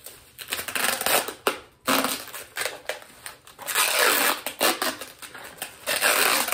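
Packing tape being pulled off the roll and wound around a bubble-wrapped bundle, in several long pulls of about a second each, with the bubble wrap crinkling under it.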